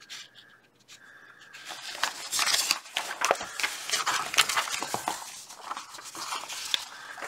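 Paper rustling and crinkling as the pages of a model kit's instruction booklet are turned and handled, starting about two seconds in.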